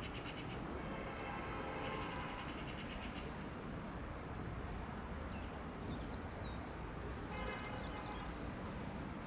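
Small birds calling, with rapid trills and short high chirps and whistles. Under them is the steady low rumble of an Airbus A319 airliner on approach, still far off.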